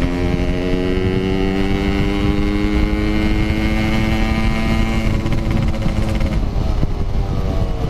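Motorcycle engine pulling hard at speed, its pitch rising slowly and steadily for about six seconds before dropping away as the throttle eases near the end. Wind rushes over the microphone throughout.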